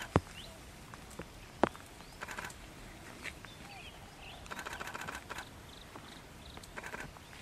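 Scattered short bird chirps over bouts of soft rustling, with two sharp clicks, one just after the start and another about a second and a half in.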